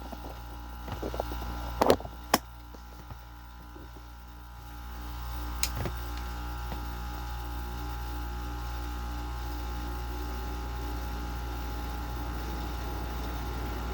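General Electric 5,100 BTU window air conditioner running with a steady hum from its LG compressor. Two sharp clicks come about two seconds in. Then, about five seconds in, the fan starts up slowly and the sound swells to a louder steady running level.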